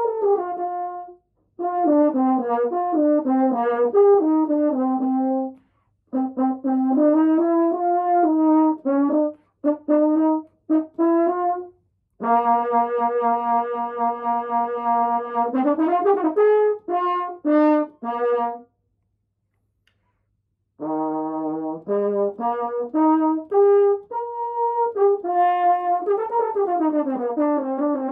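Holton H281 double French horn played solo, being tried out after major repairs. It plays phrases of moving notes and short detached notes, then a long held note that ends in a quick glide upward. A pause of about two seconds follows, then more phrases.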